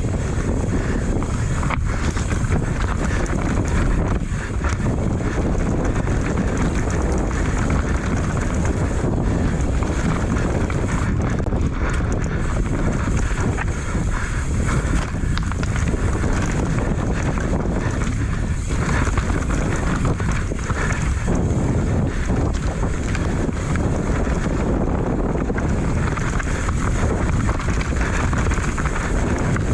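Wind rushing over a helmet camera's microphone as a Commencal Meta AM 29 mountain bike descends a downhill trail at speed, with a steady rumble from the tyres and a few knocks from the bike over the ground.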